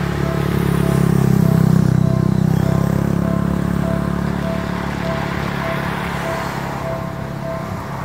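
Japanese level-crossing warning bell ringing in a steady repeating ding while a motor scooter passes close by, its engine loudest a second or two in and then fading as a car follows it over the crossing.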